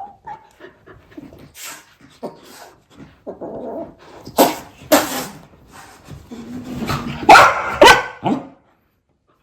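Golden retriever barking several times with whimpers and yips in between, the loudest barks in the second half.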